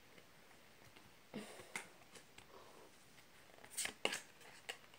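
Pokémon trading cards being handled and flipped through: a few faint flicks and rustles over quiet room tone, clustered about a second and a half in and again about four seconds in.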